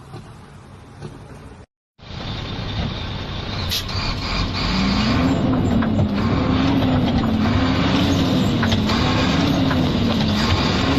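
Scania truck's diesel engine running through an open exhaust pipe. After a short break about two seconds in, it grows louder for a few seconds and then holds a steady, loud rumble, with a tone that wavers up and down about once a second.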